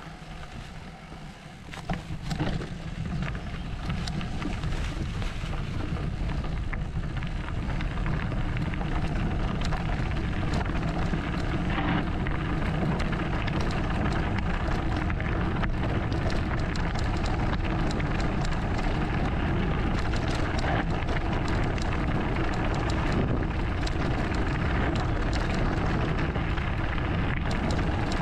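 Sunn enduro mountain bike rolling fast down a loose gravel track: tyres crackling over stones, the bike rattling with many small knocks, and wind rumbling on the camera microphone. It builds over the first few seconds as the bike picks up speed, then runs steady.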